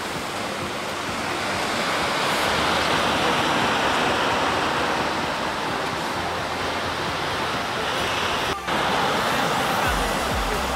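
Ocean surf breaking and washing up a beach, a steady rushing noise that cuts out briefly about eight and a half seconds in. Low buffeting, like wind on the microphone, comes in near the end.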